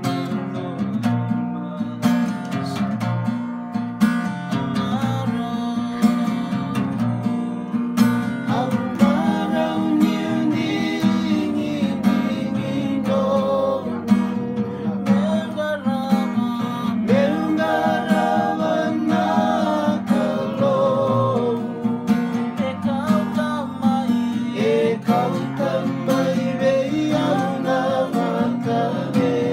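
Acoustic guitar strummed in a steady rhythm while men sing along with it; the singing comes in stronger about eight seconds in.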